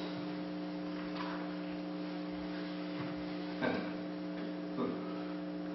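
Steady electrical mains hum, with two faint brief noises about three and a half and nearly five seconds in.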